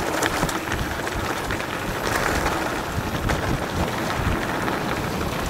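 Mountain bike rolling fast on a dirt trail: a steady rush of tyre noise with many small clicks and rattles from the bike, and wind on the microphone.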